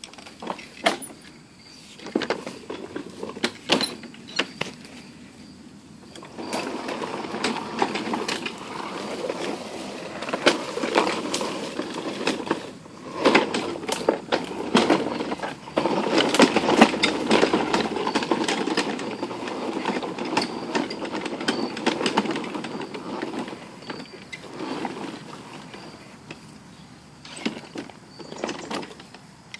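A red walk-behind lawnmower, engine not running, pushed by hand over a path and rough ground. Its wheels and deck rattle and clatter, with many sharp clicks and knocks, loudest through the middle of the stretch.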